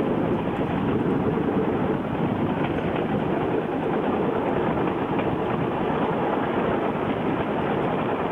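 A bamboo rail cart, a bamboo platform on rail-wheel axles driven by a small lawnmower-type motor, running steadily along the rails.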